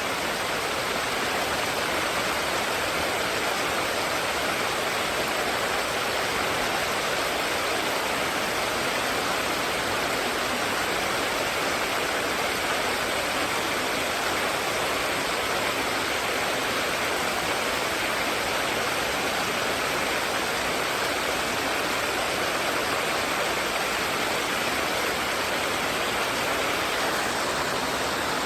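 Mountain stream water rushing steadily, an even hiss with no change and nothing else standing out.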